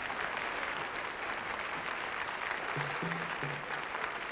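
Concert audience applauding steadily, with a few short low instrument notes sounding under the clapping near the end.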